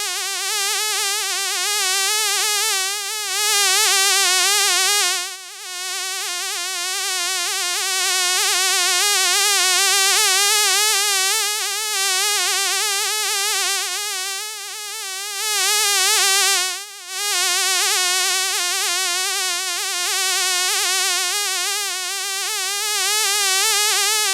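A fly buzzing: a continuous drone whose pitch wavers constantly, with two brief dips about 5 and 17 seconds in.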